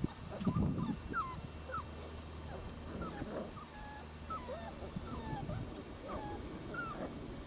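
Six-week-old Border Collie puppies whining and whimpering: a string of short, high cries that bend up and down, scattered through the whole stretch, with a louder burst about half a second in.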